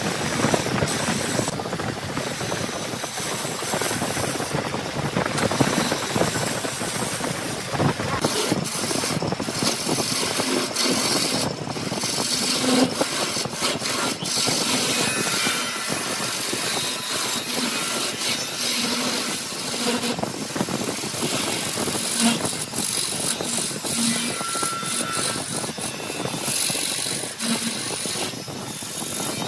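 Wood lathe running while the spinning wooden workpiece is being worked: a steady scraping hiss with frequent short sharp ticks.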